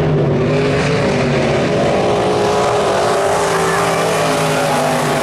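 A pack of USRA B-Mod dirt-track race cars running at racing speed, their V8 engines sounding as several overlapping engine notes that rise and fall slightly as the cars come through the turn.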